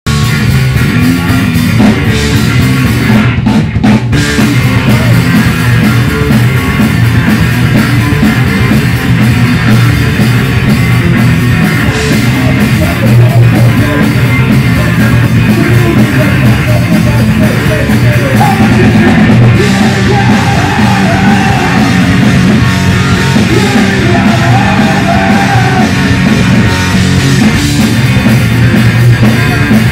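Punk rock band playing live and loud: driving bass guitar and a drum kit.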